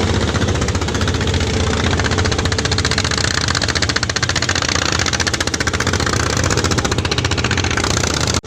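Small boat engine running steadily close by, with a fast, even knocking beat.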